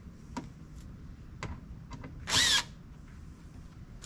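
Cordless drill-driver with a T20 Torx bit giving one short burst a little past two seconds in, its whine falling as it spins down. A few light clicks from handling the tool come before it.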